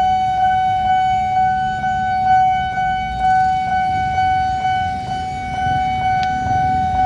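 Railway level-crossing warning alarm sounding with the barrier lowered: a steady electronic tone that pulses about four times a second, over the low rumble of road traffic.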